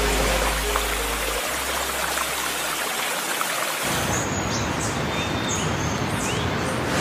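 A steady rushing hiss like running water. About four seconds in it changes tone, and a few short, faint, high whistles come in.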